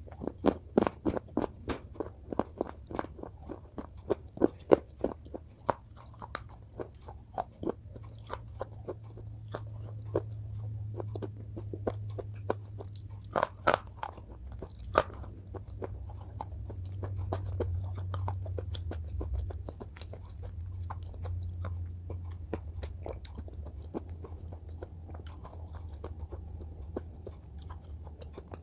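Close-miked crunching and chewing of something hard and brittle: a quick run of crisp bites and cracks, a few louder cracks about halfway through, then softer chewing.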